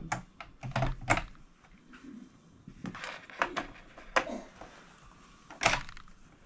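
Scattered light clicks and knocks from handling a small electric sewing machine and the fabric under its needle, irregular, with a sharper knock near the end.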